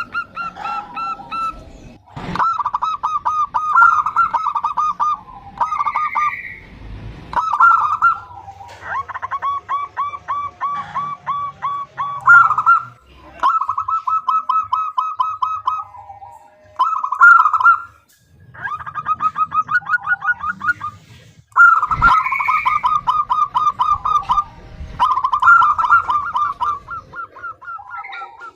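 Zebra doves (perkutut) calling in long runs of quick, staccato notes, several runs a few seconds each with short breaks between them and at times two callers overlapping. It is the female's call that draws in males.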